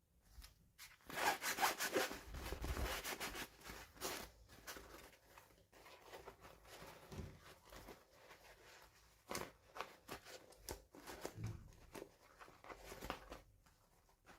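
Packaging being handled and opened: rustling, rubbing and tearing with many small clicks, busiest and loudest in the first few seconds, then sparser.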